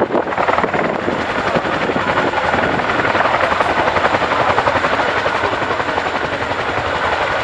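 Boeing CH-47 Chinook tandem-rotor helicopter hovering low with an army jeep on a sling load beneath it: a loud, steady, rapid beat from its two rotors.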